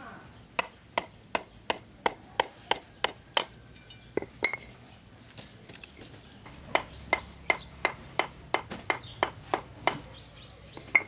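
A run of sharp, evenly spaced knocks, about three a second, stopping briefly a little before halfway and then starting again, over a steady high-pitched whine.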